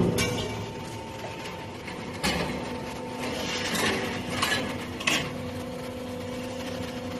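CNC busbar cutting and punching machine running: a steady hum with a few sharp metallic clanks at irregular intervals.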